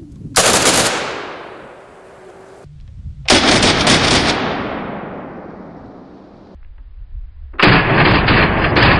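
Three shots from a PSL rifle in 7.62x54R fitted with a muzzle brake, about three and a half to four seconds apart. Each is a sharp crack that trails off in a long echo.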